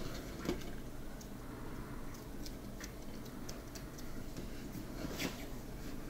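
Hands kneading soft yeast dough on a tabletop as butter is worked into it: faint, scattered sticky ticks and soft pats as the dough is pressed, folded and pushed against the table.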